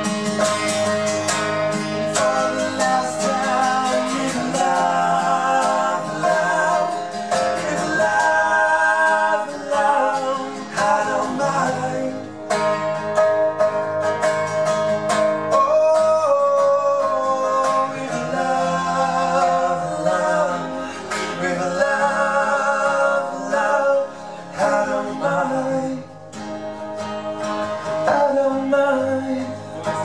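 Two acoustic guitars strummed together, with a male voice singing over them.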